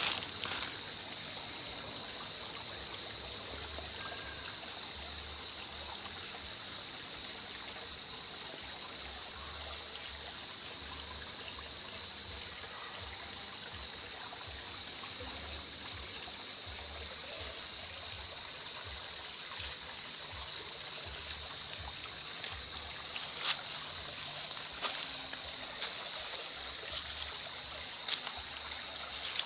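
Small creek flowing and trickling, with a steady high-pitched whine above the water and a couple of sharp clicks near the end.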